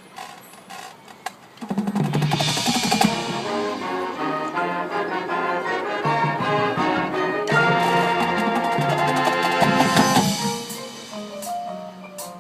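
High school marching band playing: a soft passage with light percussion taps, then the full band comes in loudly about two seconds in with many sustained notes and drum hits, easing back to a quieter melodic line near the end.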